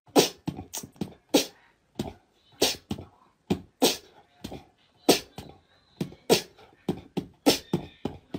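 Beatbox-style percussive rhythm of sharp clicks and thumps, about two hits a second in an uneven beat, with no melody.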